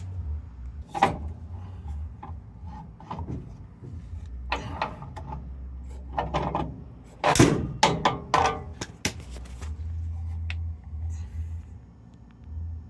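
Scattered knocks, clicks and scrapes of hands and a tool working the gas line fitting on a water heater, opening it to bleed the line, with a louder rustling burst about seven seconds in, over a low steady hum.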